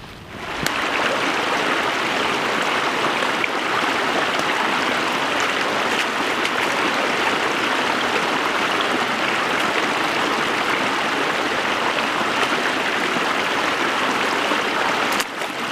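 Small woodland stream swollen with muddy floodwater, running steadily and splashing over a little cascade.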